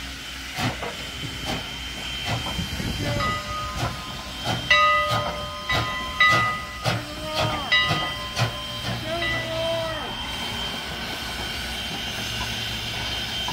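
Strasburg Rail Road No. 89, a 2-6-0 steam locomotive, working past with a steady beat of exhaust chuffs about once a second over a hiss of steam. Its whistle blows in the middle, held chord-like blasts and then shorter toots that bend in pitch as they close.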